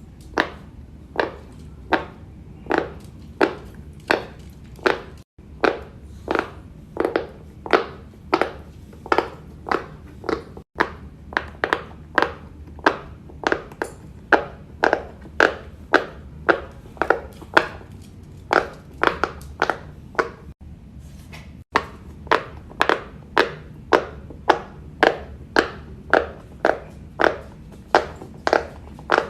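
Bubbles of a silicone pop-it fidget toy being pressed one after another, a steady run of short pops at about two a second, over a faint low hum.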